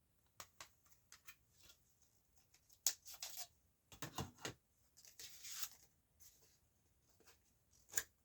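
Faint rustling and clicking of a CD booklet's paper pages being turned and handled, with scattered light clicks, a sharper one about three seconds in, a longer swish around five seconds, and another click near the end.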